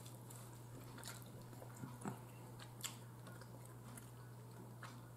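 Quiet eating sounds as a steamed chicken leg is picked apart with a fork on a plate and chewed: a few light clicks, about four, spread out, over a steady low hum.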